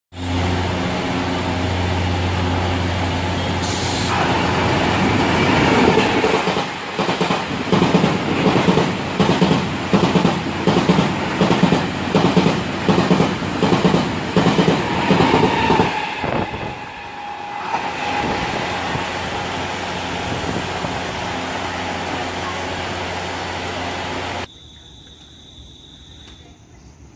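Taiwan Railways E1000 push-pull Tze-Chiang express passing at high speed. The locomotive's steady electric hum comes first, then a loud, even, rhythmic clatter of the carriage wheels over the rail joints for about ten seconds. This eases into a steadier rolling noise that cuts off suddenly near the end.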